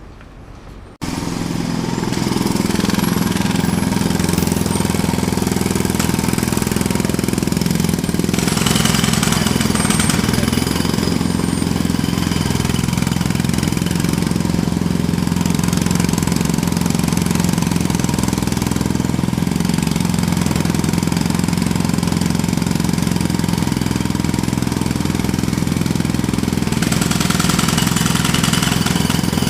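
Jackhammer starting abruptly about a second in and then hammering continuously in a loud, rapid rattle.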